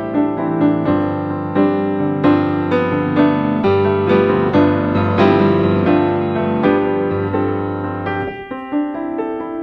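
Background piano music: a flowing melody over sustained bass notes, the bass dropping out about eight seconds in.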